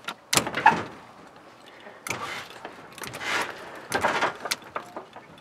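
Lowrider hydraulic suspension on a 1979 Chevrolet Caprice being let down from lockup. A sharp click comes about a third of a second in, then several short noisy bursts and light knocks as the front end settles.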